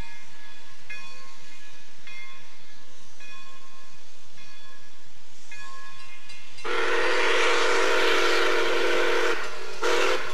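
A railroad crossing bell rings at a steady beat of a little more than one strike a second. About six and a half seconds in, the steam whistle of Pere Marquette 1225, a 2-8-4 Berkshire steam locomotive, sounds one long blast of about three seconds with a hiss of steam, then a short toot at the very end. The locomotive is whistling for the grade crossing.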